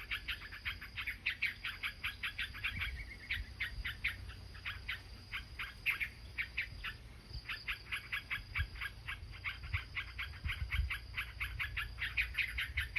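A small bird's rapid alarm calls, sharp notes repeated about five times a second with a brief pause midway: scolding a green snake near its nest. A steady high insect whine runs underneath.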